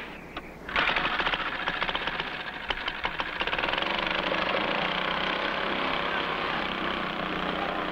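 A small engine comes in abruptly about a second in and runs steadily with a fast, even pulse.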